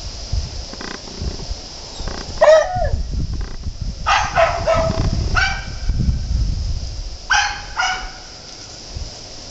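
Dogs yipping and barking in short, high-pitched bursts: a single yip about two and a half seconds in, a quick run of three or four around four seconds, then more near five and a half and seven seconds.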